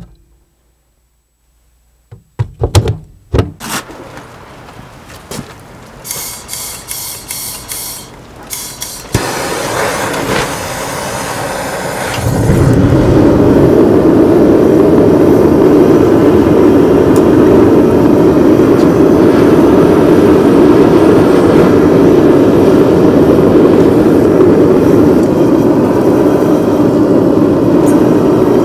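A few metal clanks from tongs handling a bundle of chainsaw chain, then about twelve seconds in a gas forge burner comes up loud and runs with a steady roar while the chain bundle heats for forge welding.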